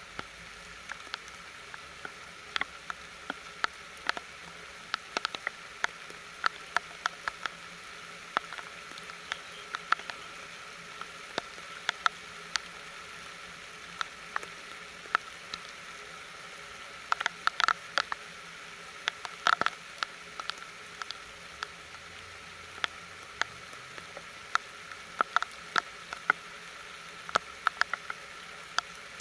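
Rain falling: a steady hiss with irregular sharp taps of single drops landing close by, a few each second, coming thicker in short clusters.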